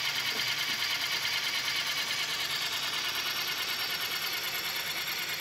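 Electric motor of a tool-grinder setup running steadily, with a fast, even pulsing and a hissing whine.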